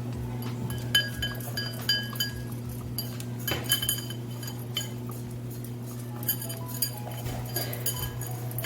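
Small dogs eating dry kibble from bowls: irregular sharp clinks against the bowls that ring briefly, over a steady low hum.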